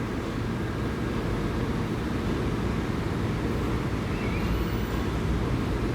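Steady low hum and hiss with no voice, the noise heard on a call through an Umidigi F2 phone with a call sound fault.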